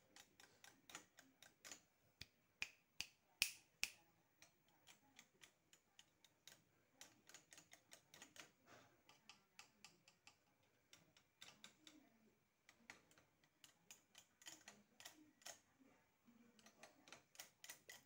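Soft, irregular clicking and tapping from fingers at the bars of a bamboo bird cage, the loudest click about three and a half seconds in.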